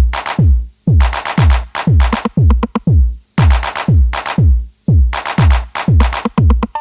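Background electronic dance music with a heavy kick drum on a steady beat, about two kicks a second, each dropping in pitch, with sharp percussion hits between them.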